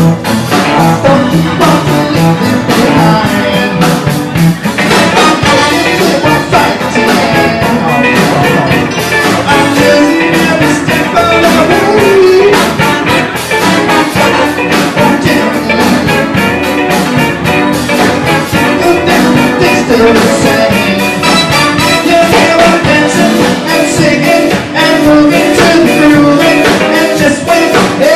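Live band music: a man singing into a microphone over a drum kit and keyboard, with a steady beat throughout.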